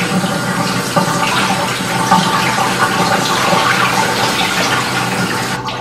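Kitchen tap running into a stainless steel pot while fumbwa (dried gnetum leaves) are washed and rubbed by hand in it, with steady splashing and small knocks against the pot. The running water stops near the end.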